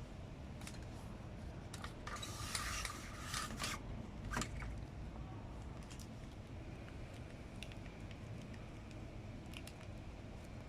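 A cat eating, with faint scattered crunching clicks. A louder scraping, rustling stretch comes about two seconds in and lasts under two seconds.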